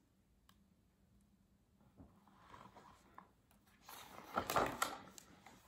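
A page of a hardcover picture book being turned by hand: faint handling sounds, then a short papery rustle about four seconds in.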